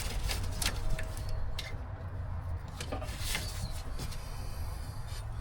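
Scattered light clicks and knocks of hand tools and engine parts being handled, over a steady low rumble.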